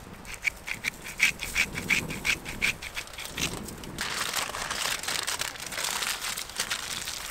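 A small plastic seasoning bottle shaken in quick strokes, about four a second, over the first three seconds. From about four seconds in, heavy-duty aluminium foil crinkles as it is folded and crimped into a packet.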